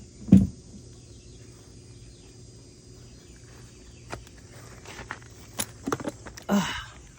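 Handling noises of pressure washer parts: a loud thump about half a second in, then scattered clicks and knocks and a short scrape near the end. Faint steady insect chirring sits underneath.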